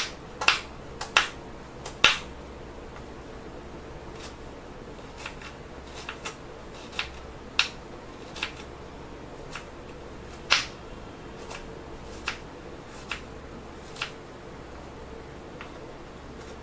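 Kitchen knife chopping a red onion on a wooden cutting board: irregular sharp taps of the blade striking the board, several a second at first, then more spaced out. A faint steady hum runs underneath.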